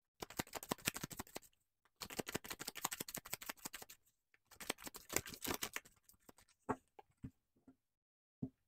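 A deck of tarot cards shuffled by hand in three runs of rapid papery flicking, then a few single knocks near the end as the deck is squared on the table.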